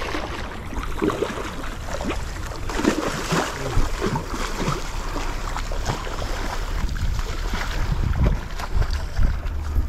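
Hooked striped bass thrashing and splashing at the surface in the shallows, in irregular bursts that are strongest about three seconds in, over a low rumble of wind on the microphone.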